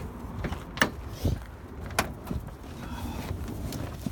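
Honda Prelude's driver door and cabin handled as a person climbs into the driver's seat: several sharp knocks and clicks, the loudest about a second in and again at two seconds, over a low steady rumble.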